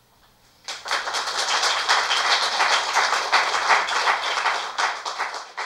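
A small audience applauding, starting about a second in and fading near the end.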